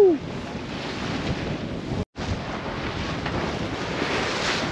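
Wind buffeting the microphone over the rush and splash of choppy water breaking along a sailboat's hull as it beats into a rough sea. The sound drops out completely for a moment about two seconds in.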